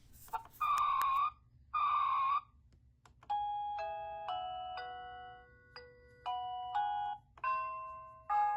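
Satisure wireless doorbell receiver playing electronic chime ringtones: two short buzzy tones about a second apart, then a melody of bell-like notes that each ring and fade.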